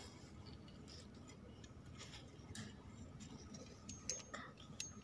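Faint, scattered small clicks and ticks from metal tongs raking through the hot ash of a clay chulha, pulling out pieces of roasted multani mitti (Fuller's earth), with a brief scrape about four seconds in.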